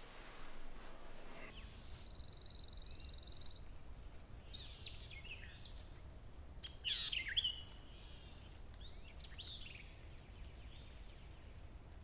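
Faint countryside ambience with small birds singing. A buzzy trill comes early, then several short chirping phrases, the loudest about seven seconds in, over a low steady rumble.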